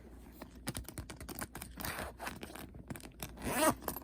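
Backpack zipper being worked and the bag handled: a run of quick clicks, then longer zipping sweeps, the loudest one near the end.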